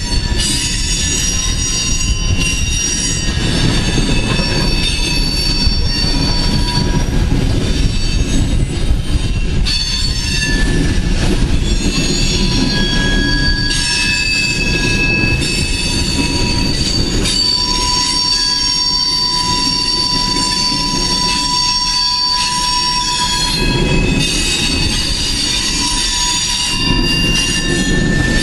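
Coal train's open-top cars rolling slowly past with a steady low rumble and continuous high-pitched wheel squeal. Several squealing tones at different pitches start and stop across each other.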